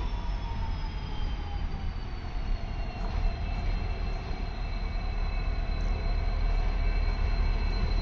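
WDP4 diesel-electric locomotive's two-stroke EMD 16-710 engine pulling a passenger train out of a station: a deep, continuous rumble with a thin high whine above it. The whine drops slightly in pitch in the first two seconds, then holds steady, and the sound grows a little louder near the end as the locomotive comes closer.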